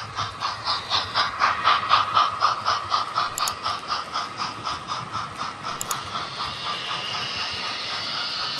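Trix HO scale Flying Scotsman model steam locomotive running past with its coaches, its chuffing going in an even rhythm of about four or five beats a second over a hiss. About six seconds in the beats fade away, leaving a steady hiss.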